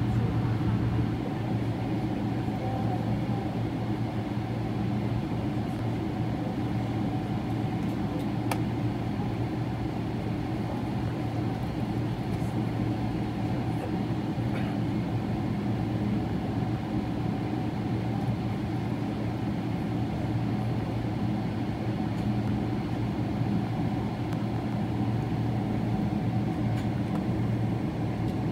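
Steady cabin hum inside a Boeing 777-300ER on the ground, its GE90 engines running at idle: a constant low drone that neither rises nor falls, with one faint click about eight seconds in.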